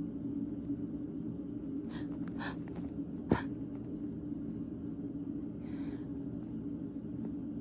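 A stifled sneeze: a couple of faint catching breaths, then one short, sharp snap about three seconds in, and a soft breath near the end. A steady low hum runs underneath.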